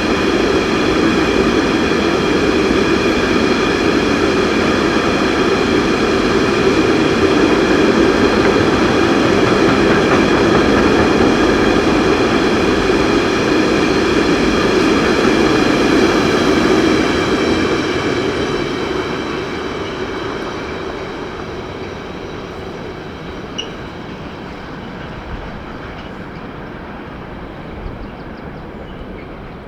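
Heavy freight train loaded with iron ore rolling past, a steady rumble with several high ringing tones over it, fading away gradually after about 17 seconds.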